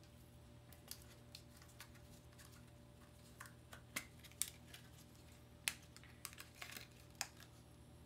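Faint, scattered small clicks and ticks of a laptop-size RAM module being handled in gloved fingers, irregular and sharp, the loudest one a little past halfway, over a low steady hum.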